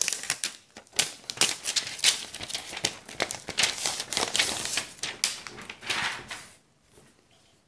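Clear plastic wrapping around a new tablet crinkling and rustling as it is handled, with many quick crackles and taps, stopping about six and a half seconds in.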